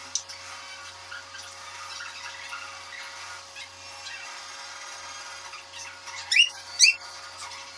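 Faint clicks and taps of a knife cutting green chillies over a steel tumbler, over a steady low hum. About six and a half seconds in, two loud, short rising squeaks half a second apart.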